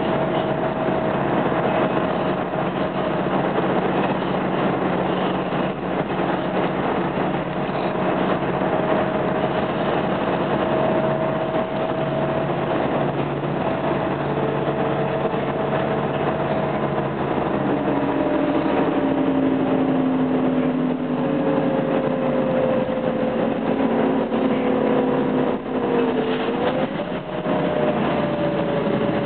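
Irisbus Crossway LE bus travelling at speed, heard from inside the passenger cabin: steady engine and road noise with a whine that slowly drops in pitch, then dips sharply and climbs back near the end.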